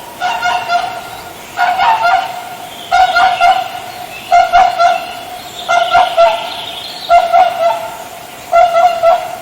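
Swan calling: loud honking calls in short bouts of a few quick notes, repeated about every second and a half.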